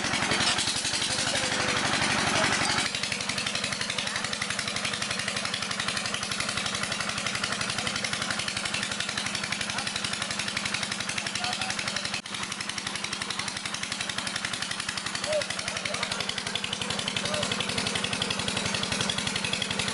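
Diesel engine driving the water pump for jet well drilling, running steadily with a fast, even beat.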